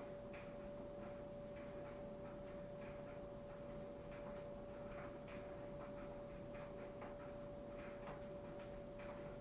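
A faint steady single-pitched hum, with soft scattered ticks and clicks at irregular intervals.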